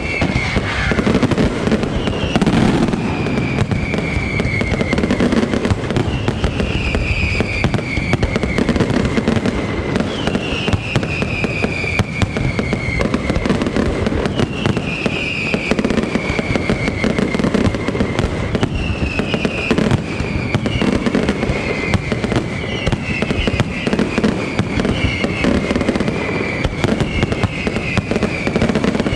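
Aerial fireworks display going off without pause: a dense run of bangs and crackling, with a falling whistle repeating every second or two.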